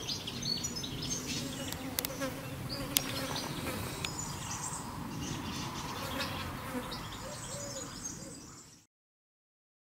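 Flying insects buzzing close by, their drone wavering in pitch, with short high chirps in the background; the sound fades out near the end.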